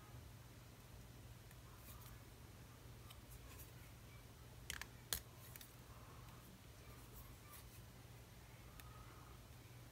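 Near silence with a steady low hum, broken by small clicks of metal tweezers working against a perfboard, the two sharpest about halfway through.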